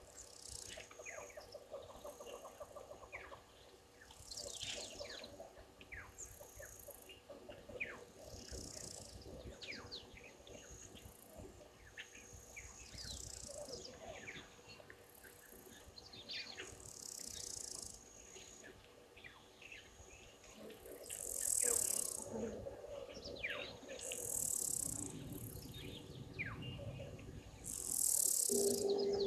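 Wild birds chirping and calling, many short quick falling notes, with several loud high buzzing bursts of about a second each in the second half.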